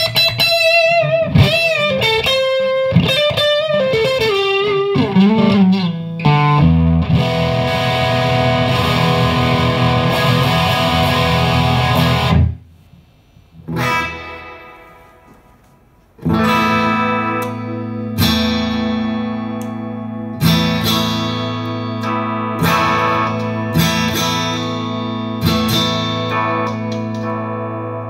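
1981 Aria Pro II CS-350 humbucker electric guitar being played. It opens with a quick lead line with string bends, then a held chord that is cut off suddenly about twelve seconds in. After a short pause it goes on with rhythmically struck chords from about sixteen seconds.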